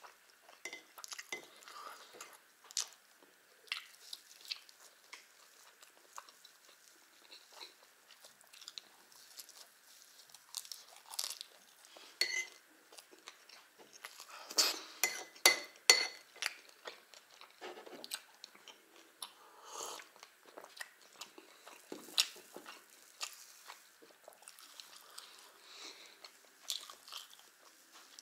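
A man chewing and eating thin pancakes (blini) with strawberry jam, with many scattered short clicks of mouth and eating noise, loudest in a cluster about halfway through.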